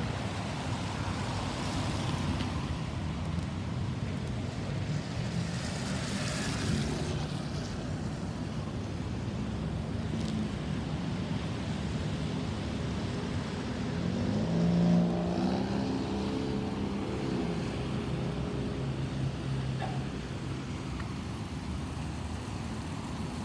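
Road traffic running steadily, with one vehicle's engine louder and rising in pitch as it passes about fifteen seconds in.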